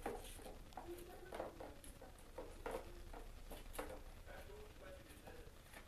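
Faint, irregular light taps and scrabbles of a kitten batting a ping-pong ball around a plastic tub.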